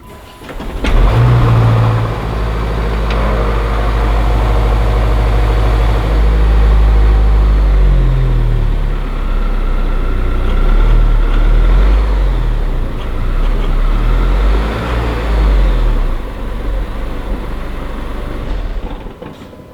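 A Range Rover Sport P400e's 2.0-litre four-cylinder petrol engine starting about a second in with a short flare, idling steadily, then revved up and down several times in quick blips before being switched off near the end.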